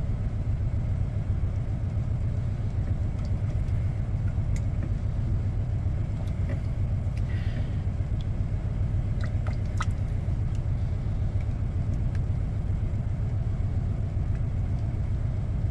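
Big rig's diesel engine idling: a steady low rumble, with a few light clicks and taps over it.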